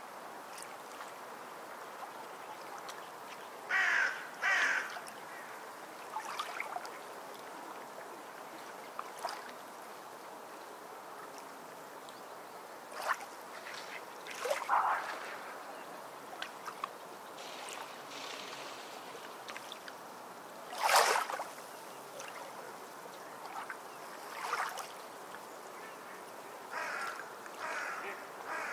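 Birds calling outside: short calls, singly and in pairs, spaced several seconds apart, the loudest about two-thirds of the way through.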